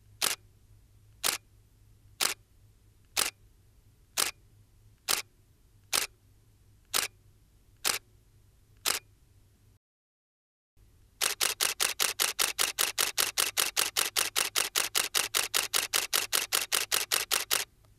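Nikon D810 DSLR's mirror and shutter firing as single shots, ten clicks about a second apart. After a short pause it fires a continuous burst at about five frames a second for some six seconds.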